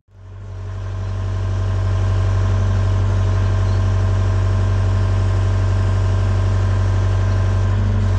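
Komatsu PC75UU-2 mini excavator's diesel engine idling steadily with a deep, even hum; the sound fades up over the first couple of seconds.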